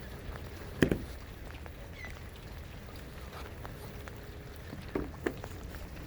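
Outdoor ambience in rain: a steady low rumble and hiss with scattered light ticks of raindrops. Three short sharp knocks stand out, one about a second in and two close together near five seconds.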